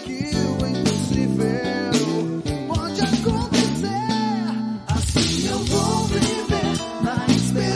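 Band music: a sung song with guitar, over steady bass notes.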